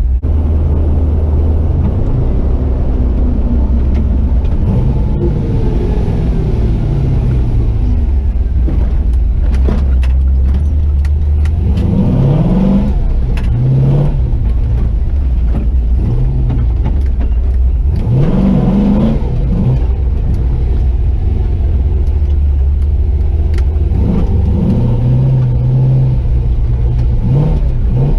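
A Chevy 4x4 truck's swapped-in 6.0 L LY6 V8 running under a heavy low rumble while driving. The engine revs up in rising climbs about twelve seconds in and again about eighteen seconds in, then eases off.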